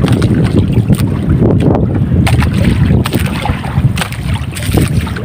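Fishing boat under way at sea: a steady, loud rumble of the boat running through the water, with wind buffeting the microphone.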